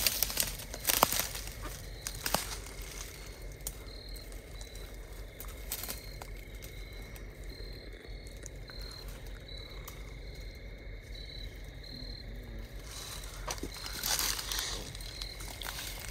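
Footsteps crunching through dry leaves and brush rustling as people push through thick undergrowth, busiest in the first couple of seconds and again near the end. In the quieter middle a faint steady high tone and short, evenly repeated high chirps carry on.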